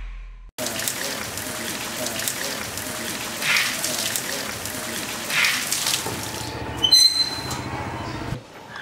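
Water spraying from a garden hose onto potted plants, a steady hiss. A short, high ringing tone comes near the end.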